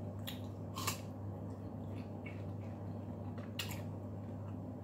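Eating juicy melon with the fingers: a few short wet smacks and clicks over a steady low hum.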